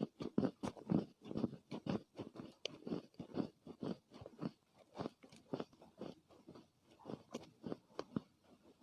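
Mouth close-up of Chinese loess clay being chewed: a steady run of soft crunches, about three a second, growing a little softer toward the end.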